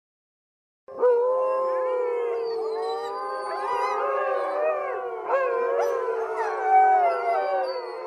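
Several wolves howling together in a chorus, starting abruptly about a second in. Many long howls at different pitches overlap, gliding up and down.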